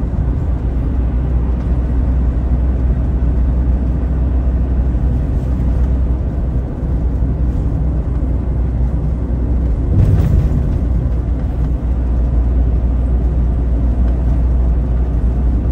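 Steady low rumble of road and engine noise inside the cab of a Peugeot Boxer-based motorhome cruising at motorway speed, with a brief louder bump about ten seconds in.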